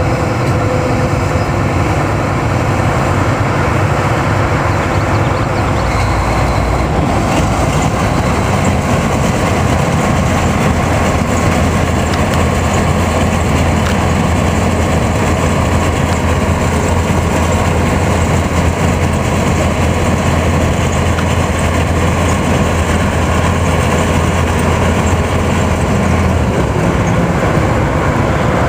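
John Deere combine's diesel engine running steadily at a standstill, a continuous low hum under a broad mechanical noise.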